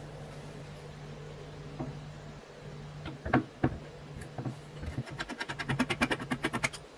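Screwdriver working the retaining screw of a bell gong on a GEC 64d telephone bell set. Two sharp knocks as the tip is seated, then about two seconds of quick, even metallic clicking, around ten clicks a second, as the screw is turned out.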